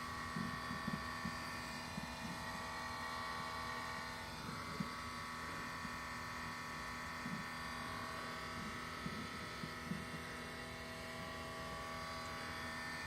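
Steady electric hum of a 2016 Subaru STI's in-tank fuel pump running with the engine off, its pitch stepping up slightly about four seconds in. It is the pump doing a pressure test after shut-off, which is normal and not a fault.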